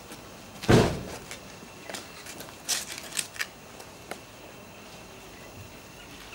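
A dull thump about a second in, then a few short scuffs and clicks of shoes on brick paving.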